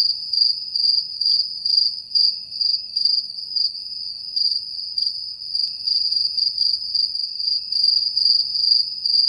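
Crickets chirping: a steady high trill with louder pulses repeating evenly, about two or three a second.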